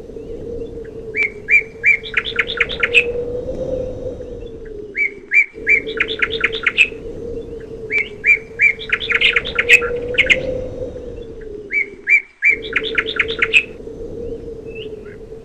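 A songbird singing the same phrase over and over, about every three to four seconds: a few even notes, then a rapid trill. A steady low hum runs underneath and cuts out briefly twice.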